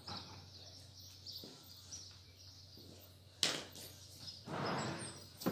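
Work noises from handling parts and tools: a sharp knock about three and a half seconds in, then about a second of rough scraping noise and a click near the end.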